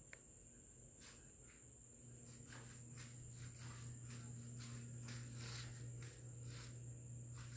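Faint background: a steady high-pitched whine and a low hum, with scattered soft clicks and rustles that come more often in the middle seconds.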